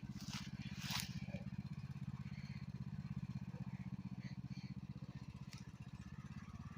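Riding lawn mower engine running steadily under way, with a couple of brief rattles in the first second.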